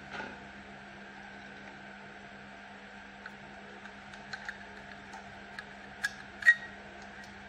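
Small metal clicks and taps from fingers handling the parts of an overlock sewing machine while its feed dogs are being removed. The clicks are scattered and irregular, the loudest a sharp click about six and a half seconds in, over a steady low hum.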